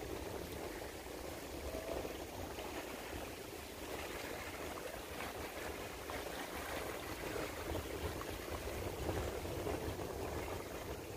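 Steady rushing of moving water with a low rumble underneath, unbroken and without distinct events.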